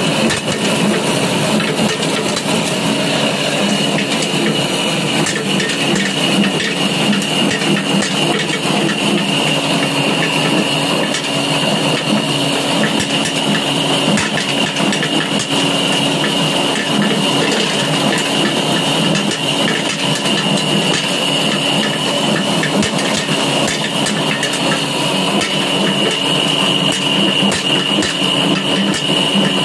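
Areca nut peeling (dehusking) machine running steadily: its electric motor and blower give a constant whine, over a dense, continuous rattle of nuts and husk being beaten and thrown out.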